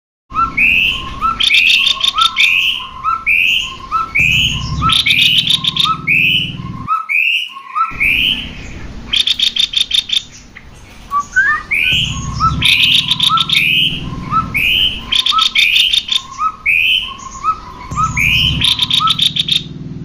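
Cucak kopi birds singing in a fast, repeating chatter of short rising whistled notes mixed with quick rattling trills. The song breaks off briefly about seven seconds in, then carries on.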